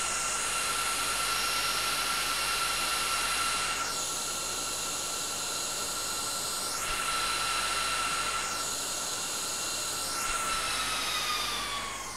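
HP ProLiant server's cooling fans running at high speed with a loud, steady whine, as the fans ramp up while the iLO 4 management processor resets after its firmware update. Near the end the pitch falls and the sound fades as the fans slow down.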